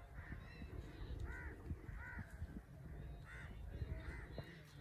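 A bird calling repeatedly: about five short calls spaced roughly a second apart, over a low steady rumble.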